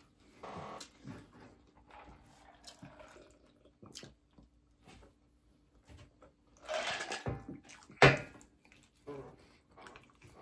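Quiet eating sounds: faint scattered chewing clicks and smacks, a short noisy swish about seven seconds in, then one sharp knock, the loudest sound, just after.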